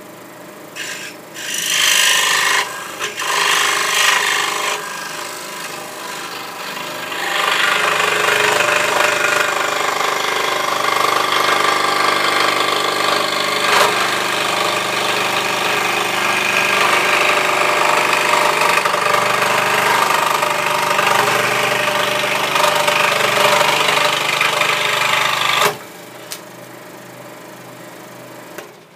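Record Power SS16V variable-speed scroll saw cutting a test piece of wood with a pinless blade, a steady reciprocating rasp over the motor's hum. The cut starts in uneven bursts about a second in, steadies from about seven seconds, and the cutting noise stops about three seconds before the end.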